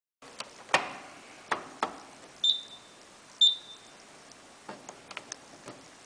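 Program selector dial of a Hoover Quattro washing machine clicking through its settings as it is turned, with a few sharper clicks in the first two seconds and lighter ones near the end. The control panel gives two short, high beeps about a second apart in the middle.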